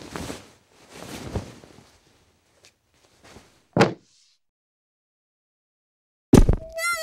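Soundtrack sound effects for an animated short: breathy noise bursts, a sharp thunk a little before four seconds in, a gap of silence, then a loud thump and a wavering pitched tone with a wobbling vibrato that starts near the end.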